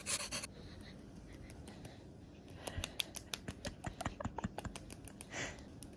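A soft rustle, then a run of small, irregular clicks and taps for a couple of seconds, and a brief hiss near the end.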